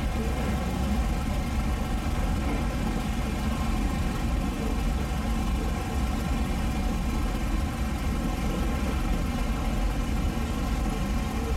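A car engine idling steadily, an even hum with a heavy low end that holds unchanged throughout.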